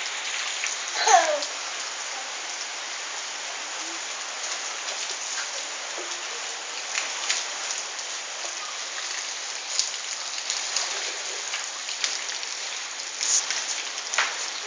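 Steady rain falling and pattering on surfaces, with a few brief splashes or knocks. A short falling voice sound about a second in.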